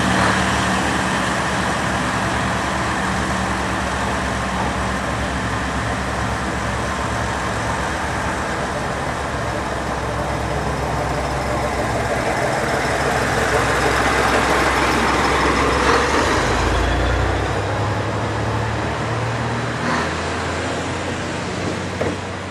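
KiHa 40 series diesel railcar's engine running steadily, with a deeper surge and a change in its low tone about two-thirds through, and a couple of faint clicks near the end.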